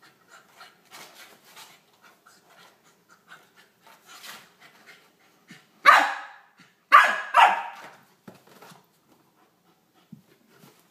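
Welsh corgi puppy giving three loud, short barks in quick succession about six seconds in while play-fighting with a ferret, with soft scuffling sounds before and after.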